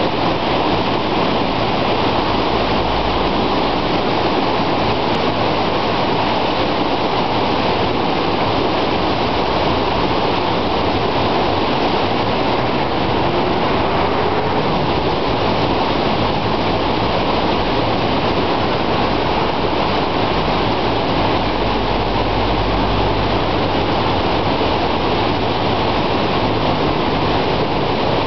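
The upper Garonne, a fast, shallow river, rushing over rocks and stones in white-water riffles: a steady, loud rush of water that does not change.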